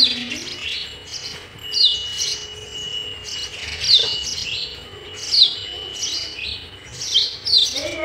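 Sparrows chirping at a nest with chicks: short, high chirps that fall sharply in pitch, roughly one a second, with a thin steady high tone held for about a second and a half near the start.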